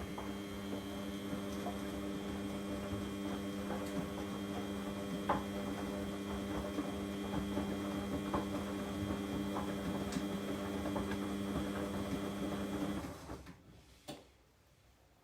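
Car shock absorbers knocking in short, irregular taps over a steady mechanical hum: the 'tak tak' knocking of worn shock absorbers. The hum stops about thirteen seconds in.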